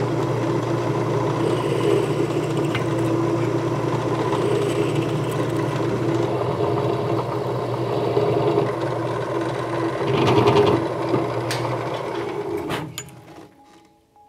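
Drill press motor running steadily while drilling holes in an aluminium part, with a louder stretch about ten seconds in. The motor is switched off near the end and winds down.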